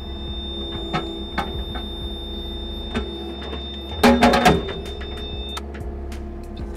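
Mini excavator's diesel engine running steadily with scattered light clicks; about four seconds in, a brief burst of metallic clanking as the quick coupler's hooks take the steel digging bucket's pins and lift it off the ground.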